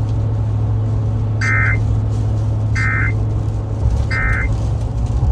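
Emergency Alert System end-of-message data bursts: three short, identical digital warbles about a second and a half apart, the signal that closes the severe thunderstorm warning broadcast. A steady low hum from the truck runs underneath.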